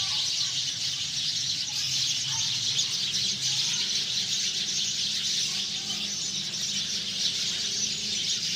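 A flock of sparrows chirping, many birds at once in a dense, unbroken chatter.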